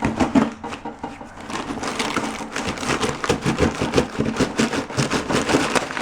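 Rummaging through a packed box of household items: rapid, irregular crinkling of crumpled packing and light knocks of objects being handled, busier from about two seconds in.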